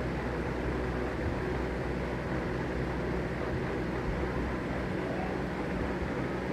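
Steady low hum with a constant rushing noise over it, unchanging throughout.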